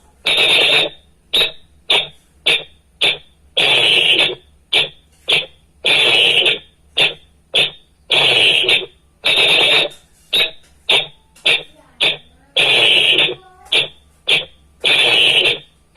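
A whistle blown in a run of sharp, high-pitched blasts, long and short ones mixed, in the manner of whistle signals.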